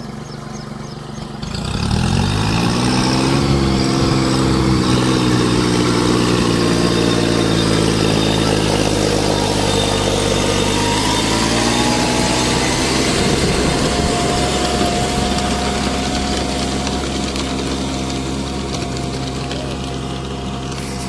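Kubota compact tractor's diesel engine running while it drives a rotavator through the soil; about two seconds in it revs up and then holds a steady, higher speed, its pitch shifting a little around the middle.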